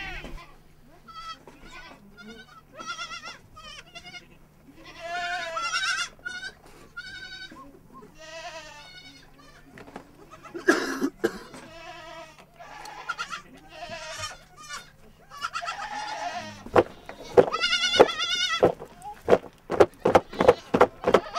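A herd of goats bleating, many quavering calls overlapping one after another. Near the end comes a quick run of sharp knocks or clatter.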